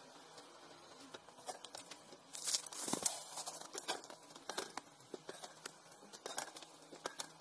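Homemade steel pedal bin being worked by foot: a run of light clicks and rattles from the pedal linkage and lid, loudest around two and a half to three seconds in.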